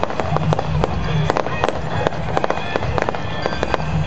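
Fireworks going off in rapid succession, many sharp bangs and crackles close together, over music.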